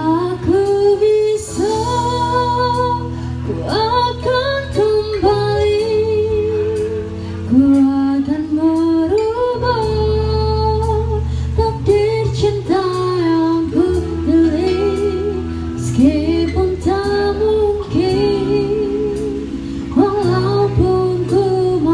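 A woman singing into a microphone, accompanied live by electric bass, guitar and keyboard.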